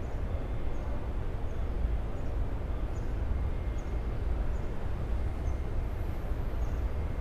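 Outdoor ambience: a steady low rumble with faint short high chirps about once a second.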